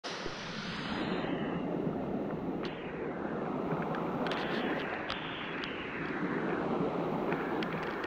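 Small forest stream running: a steady rush of flowing water over rocks, with a few short sharp ticks scattered through it.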